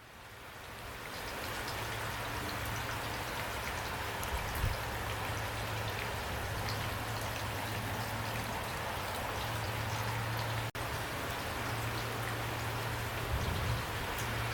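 Steady rain falling, many separate drops heard over an even hiss, with a low hum underneath. It fades in over the first couple of seconds and cuts out for an instant about ten seconds in.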